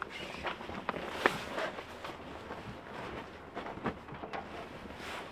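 Zipper and canvas rustling as a panel in the fabric tent wall of a Super Pacific X1 pop-up camper is unzipped and pulled open, with scattered clicks and a couple of sharper knocks.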